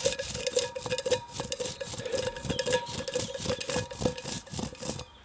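A stainless steel pot being scrubbed hard with moss, in quick back-and-forth rubbing strokes, several a second, with a steady ring running under them. The scrubbing stops about five seconds in.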